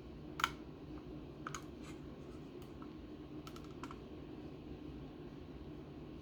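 A few sharp plastic clicks and taps as a smoke detector is handled with its test button held down, over a steady low hum. The detector gives no alarm tone: it fails its test.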